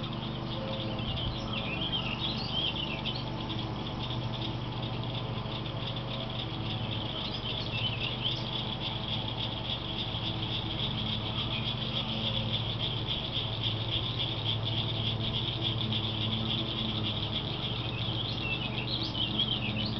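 Steady high, fast-pulsing buzz of summer insects, with a bird chirping briefly a few times and a low steady hum underneath.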